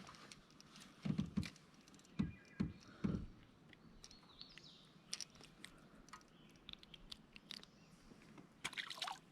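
Handling noises on a small fishing boat: a few dull knocks in the first three seconds, then scattered small clicks and ticks, and a louder rustle near the end.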